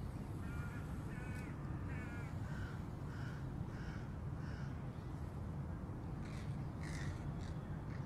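A bird calling again and again, short harsh calls about twice a second for the first few seconds and a few more near the end, over a steady low rumble.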